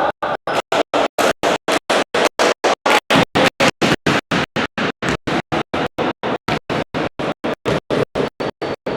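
Music cut into rapid, even stutters about four or five times a second, with full silence between the pulses, like an audio dropout or glitch chopping the track.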